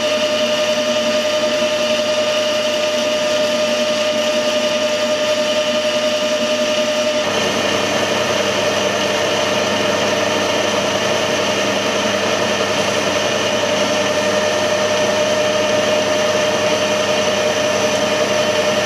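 Metal lathe running with a steady whine while a boring bar bores out a bearing housing to 30 mm; the sound gets fuller about seven seconds in.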